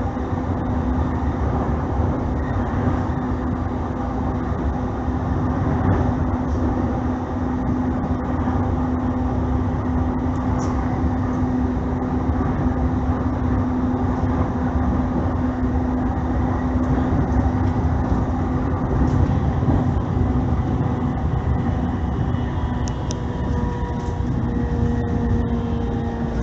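JR East E531-series electric multiple unit running between stations: a steady rumble of wheels and running gear with a constant low hum. A higher whine comes in near the end.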